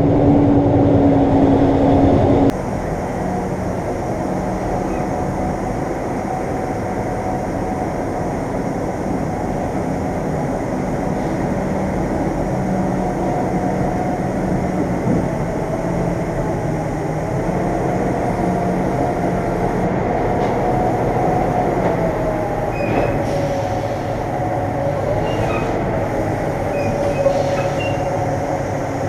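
Semi truck's diesel engine running, an even rumble with a faint wavering whine. The sound changes abruptly about two and a half seconds in.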